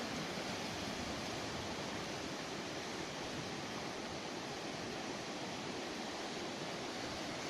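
Steady, even rushing of water, like surf or a fast stream.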